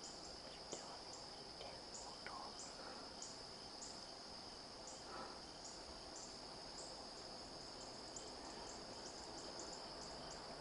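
Evening insect chorus in the woods: crickets keep up a steady high-pitched drone, with short, high chirps repeating over it about twice a second that come closer together near the end.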